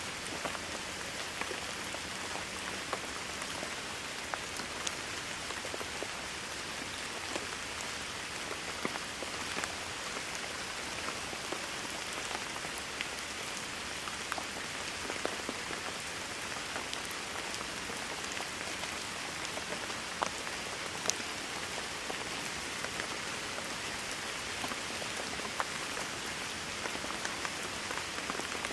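Steady rain falling on a surface: a constant hiss with scattered individual drops striking close by.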